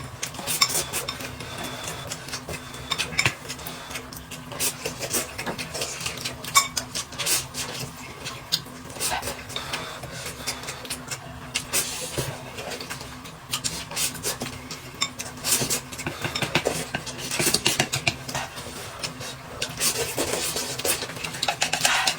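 Cutlery and dishes clinking: irregular taps and scrapes of utensils against bowls and plates while eating.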